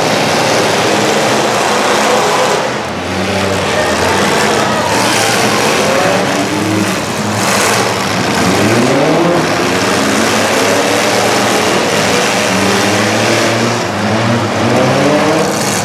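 Several demolition derby cars' engines revving hard at once, their pitch repeatedly rising and falling as the drivers accelerate and back off, over a dense noisy background.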